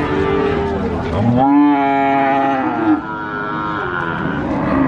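Cow mooing: one long, loud moo starting about a second in and lasting about a second and a half, rising at the start and then held, with fainter lowing just before and after it.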